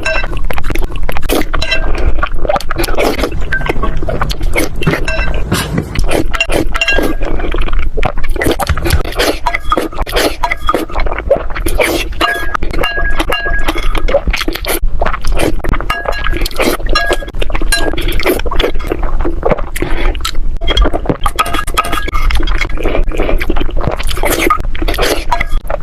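Continuous, rapid clinking and knocking of hard objects against each other, many strikes leaving short ringing tones.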